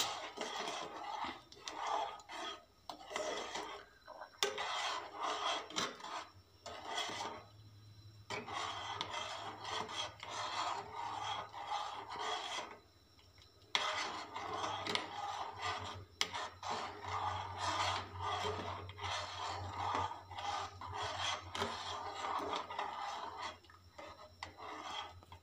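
Metal spoon stirring heating milk in a metal saucepan, scraping the bottom and sides in quick repeated strokes. The strokes stop briefly about halfway through, for about a second, then go on.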